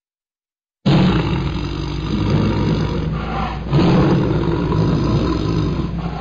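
Tiger roaring: a loud roar starts suddenly about a second in, and a second roar begins about three and a half seconds in.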